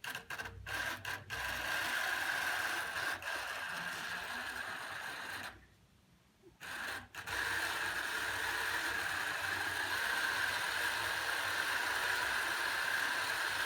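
Old battery drill motor driving a homemade milling-machine power feed through bicycle sprockets and chain, running steadily with a constant whine after a few clicks at the start. It stops briefly about five and a half seconds in and starts again about a second and a half later.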